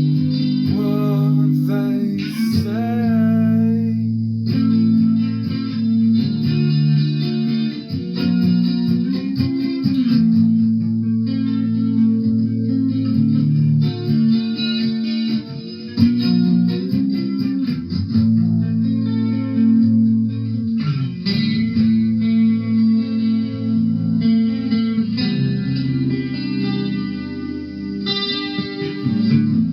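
Guitar music played without a break, the notes and chords changing throughout.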